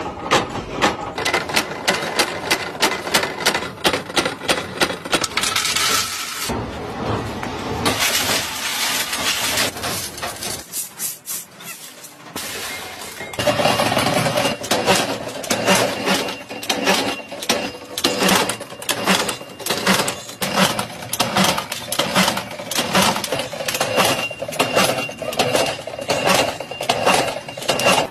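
Nut-making machinery clanking rapidly and rhythmically, metal striking metal as a press forms hex nuts from steel rod. It eases off for a couple of seconds about eleven seconds in, then picks up its steady rhythm again.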